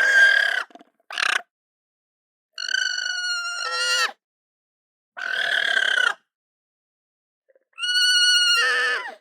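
A series of about five short, high-pitched animal calls, each with a clear pitch, some ending in a falling pitch, separated by silent gaps.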